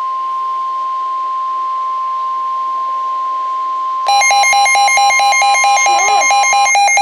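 Steady single-pitch emergency alert attention tone, the NOAA Weather Radio warning alarm tone. About four seconds in, a louder electronic alarm starts beeping several times a second over it.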